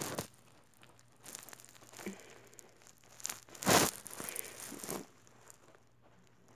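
Fabric rustling and scuffing in a few short scratchy bursts, the loudest a little under four seconds in.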